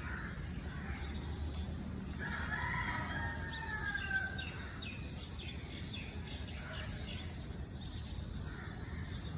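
A rooster crows once, starting about two seconds in: one call of about a second and a half that falls slightly in pitch at the end. Small birds chirp throughout over a steady low rumble.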